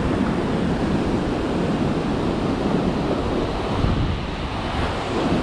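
Heavy ocean swell surging and breaking into whitewater against the foot of a sea cliff, a steady wash of surf, with wind buffeting the microphone.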